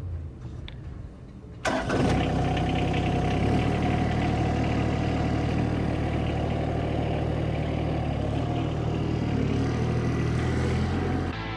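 An engine starts about two seconds in and settles into a steady idle, then cuts off just before the end.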